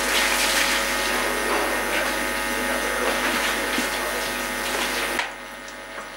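Steady rushing noise with a hum running through it, with a few faint knocks of kitchen clatter. About five seconds in it drops sharply to a quieter hiss.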